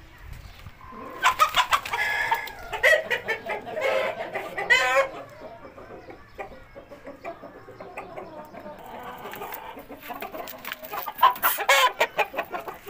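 Game chickens (Pakistani and Thai cross-bred fowl) calling in two bouts of rapid, broken calls: one from about a second in to five seconds, and another near the end, with a quieter stretch between.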